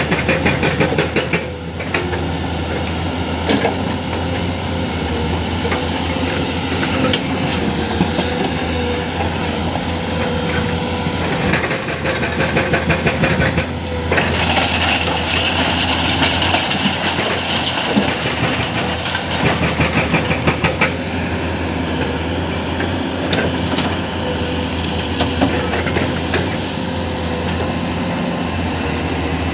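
Excavator's diesel engine running steadily, with several stretches of rapid, even hammering blows from a hydraulic breaker.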